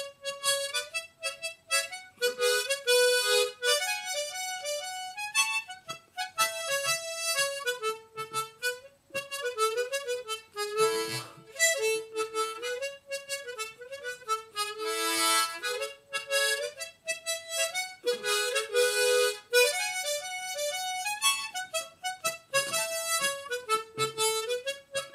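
A harmonica played as a solo tune: a melody of notes stepping up and down, with a few fuller chords blown in several times along the way.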